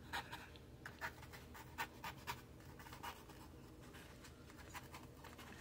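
A paintbrush and a tissue working on watercolour paper: faint, irregular short scratchy strokes.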